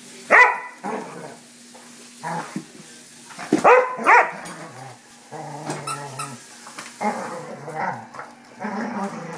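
Vizsla barking in play: a sharp bark near the start and two more close together about four seconds in, then stretches of low growling.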